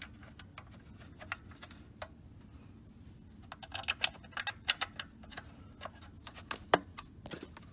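Irregular light clicks and taps from small screws and plastic vacuum-motor parts being handled, in bunches about three and a half seconds in and again near seven seconds.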